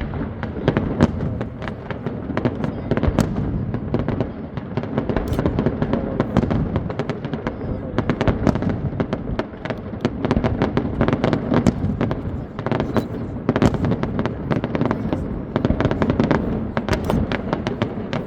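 Fireworks display: a dense, continuous barrage of sharp crackling bangs and booming bursts over a steady rumble.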